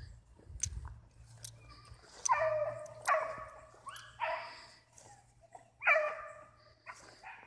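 Rabbit hounds baying: four long, drawn-out bays, starting about two seconds in, the voice hounds give while running a rabbit's trail.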